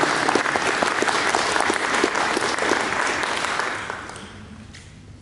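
Congregation applauding, the clapping dying away about four seconds in.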